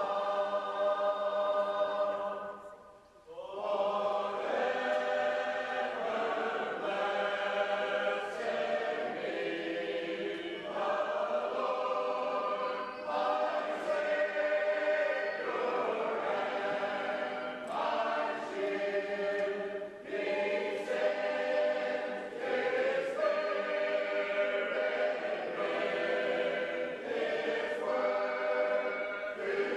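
Shape-note singers singing a tune in unaccompanied parts, several voices holding notes together and moving from chord to chord. There is a short break about three seconds in before the next phrase begins.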